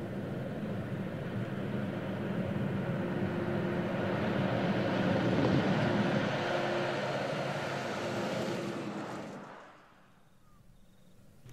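Volvo FH16 700 truck's 16-litre inline-six diesel engine running under load, with tyre noise on a gravel road. It grows louder as the truck approaches, peaks about six seconds in, then fades out near the end.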